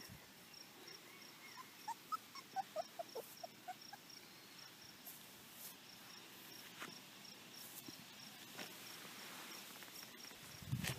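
Four-week-old Border Collie puppies giving faint, short high squeaks and whimpers, a quick run of them about two to four seconds in. A faint, regular high ticking runs underneath.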